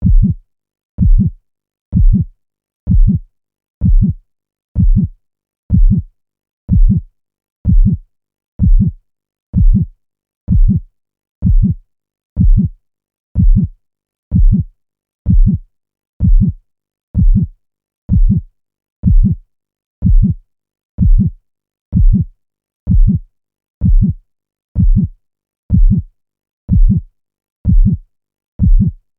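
Dramatic heartbeat sound effect: low heartbeat thumps in a steady loop, about one a second (roughly sixty a minute), each fading quickly.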